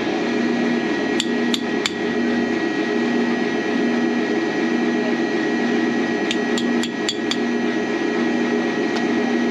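Light hammer taps on steel shackle hardware: three quick taps about a second in, then five more between about six and seven and a half seconds in. Under them, a steady machine hum with a pulsing low tone.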